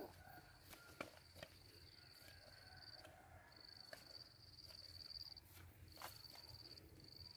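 Faint insect trilling: a high, steady note held for one to two and a half seconds at a time, broken by short gaps, over a few soft clicks and a low rumble.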